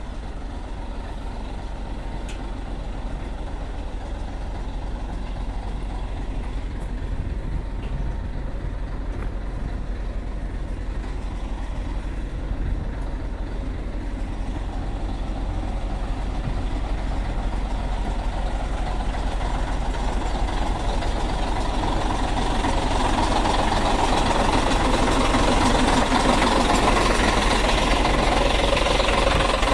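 Old Scania prime mover's diesel engine idling, a steady low rumble that grows louder toward the end.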